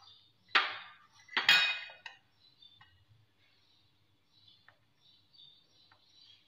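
A metal spoon clinking and scraping against a glass bowl twice, loudly, in the first two seconds, as the creamy mayonnaise filling is scooped out; then a few faint light taps of the spoon.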